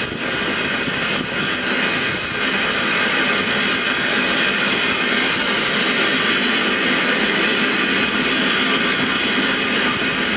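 Steam escaping from the SECR P class tank locomotive 323 Bluebell with a loud, steady hiss that grows a little fuller a couple of seconds in.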